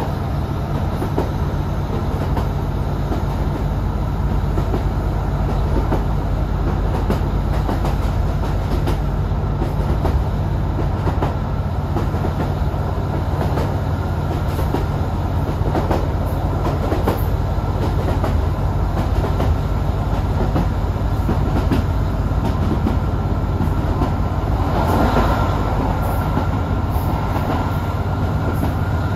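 Class 150 Sprinter diesel multiple unit running at speed, heard from inside the passenger saloon: the steady drone of its underfloor Cummins six-cylinder diesel engine under the rumble of wheels on rail, with occasional knocks as the wheels pass rail joints. The running noise swells briefly near the end.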